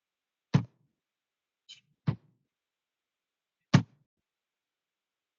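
Three sharp taps on a microphone, about a second and a half apart, with a fainter click between the first two, as a sound check.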